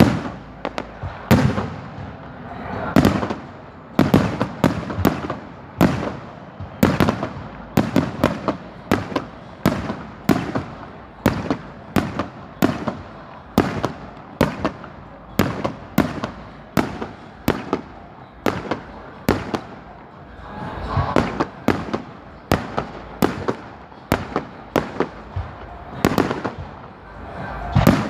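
Fireworks display: aerial shells bursting in an irregular series of sharp bangs, at times several a second, each trailing off in a rumbling echo.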